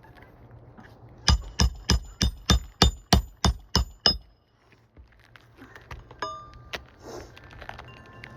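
Hand hammer driving a roofing nail into an asphalt shingle: about ten quick strikes, roughly three a second, each with a metallic ring. A single ringing metal clink follows about six seconds in.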